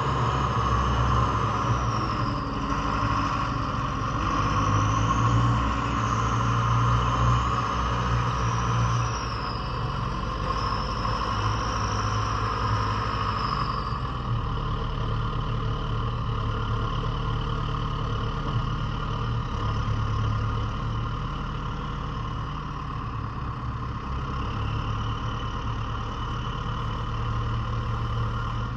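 JCB 3CX Sitemaster backhoe loader's four-cylinder diesel engine running steadily. Over about the first half a high whine wavers up and down in pitch, then fades while the engine runs on.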